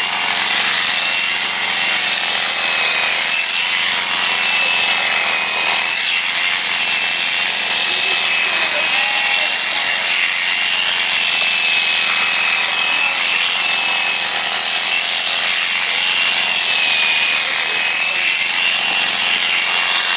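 Electric sheep-shearing handpiece running steadily as it cuts through the fleece: a high whine that wavers slightly in pitch over a constant hiss.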